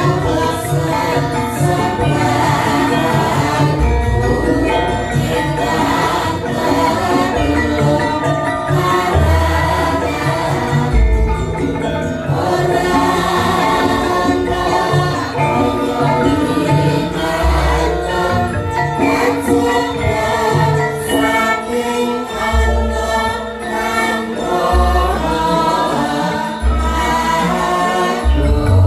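Javanese gamelan ensemble playing, with voices singing along over the layered metallophone tones and deep low strokes every few seconds.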